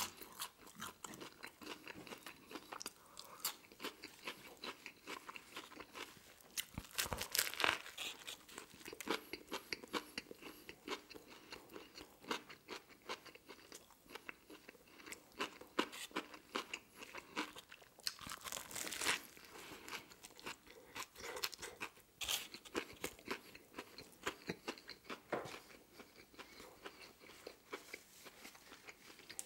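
Close-miked chewing and biting of french fries and a deli cold-cut sandwich with lettuce, pickles and potato sticks: a steady run of small crunches and wet mouth sounds. Louder bites come about 7, 19 and 22 seconds in.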